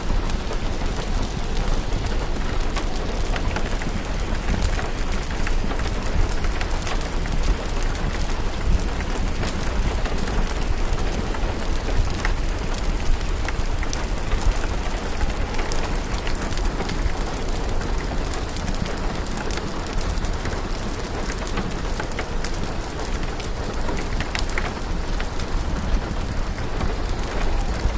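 Steady rain mixed with fireplace fire crackling: a continuous hiss and low rumble, dotted with many small sharp crackles and drips.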